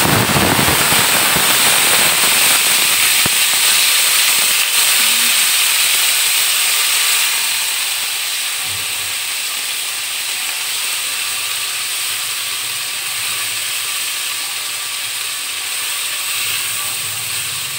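Water poured into hot oil with fried onion and spice pastes in a stainless steel pot, setting off a sudden loud sizzle and hiss of steam. It eases after about seven seconds into a steady frying sizzle.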